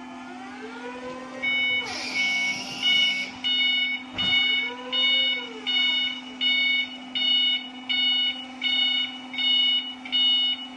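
Electric forklift's warning beeper starts about a second and a half in and repeats about one and a half times a second. Under it run the steady hum and slow rising-and-falling whine of the truck's electric motors as it manoeuvres and lifts.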